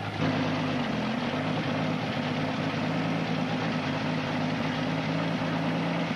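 1956 Ford Zephyr Six's straight-six engine running steadily, loud and noisy through holes in the exhaust pipe from the motor. It gets a little louder just after the start and then holds steady.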